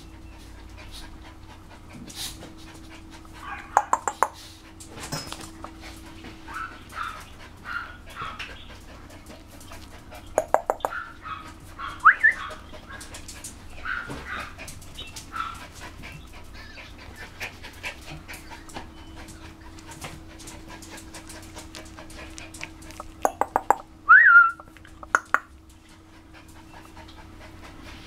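Seven-week-old puppy making short high squeaks and whimpers, with a short rising whine about twelve seconds in and again near the end. Quick runs of sharp clicks come several times and are the loudest sounds, clustered around the whines.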